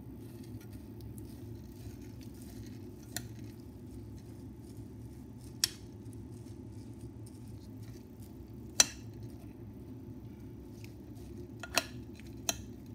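Gloved hands mixing raw rice with spices and ghee in a bowl: faint rustling of the grains, with a handful of sharp clicks against the bowl, the loudest about two-thirds of the way through, over a steady low hum.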